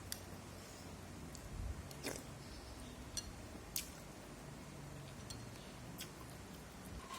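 Eating sounds: quiet chewing with about five short, sharp clicks of utensils on dishes.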